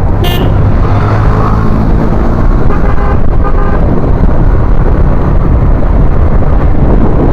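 Road traffic with vehicle horns honking: one horn about a second in and two short beeps around three seconds in, over a steady, loud low rumble.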